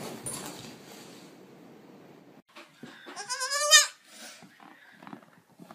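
A young goat kid bleats once, a wavering call about a second long, roughly three seconds in.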